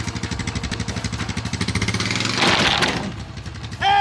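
Cheap winch's motor running with a rapid, even pulsing, then cutting out about two and a half seconds in after a brief rush of noise.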